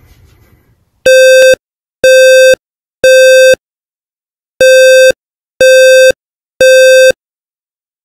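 First Alert Wireless Series smoke and carbon monoxide alarm sounding its fire alarm: three buzzy half-second beeps about a second apart, a pause, then three more. This is the temporal-three pattern that signals smoke or fire.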